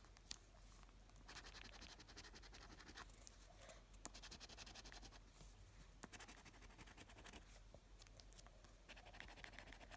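Coin scratching the coating off a word-grid scratch card in quick, faint, rapid strokes, with a couple of sharp ticks along the way.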